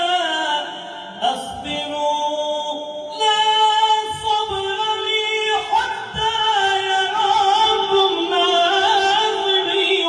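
A single voice singing an Aleppine nasheed in the tarab style, holding long melismatic notes with wavering ornaments, apparently unaccompanied.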